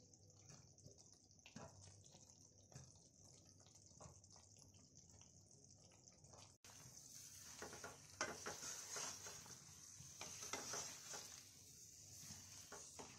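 Faint soft plops and drips as raw mango pieces are dropped by hand into a kadai of hot oil and melted jaggery, over a steady light hiss. The plops get denser and a little louder after about six and a half seconds.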